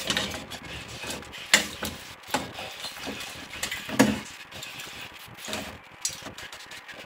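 A metal slotted spoon stirs a thick meat stew in a metal pot, scraping and knocking against the pot at an irregular pace. The clinks are sharpest about one and a half, two and a half, four and five and a half seconds in.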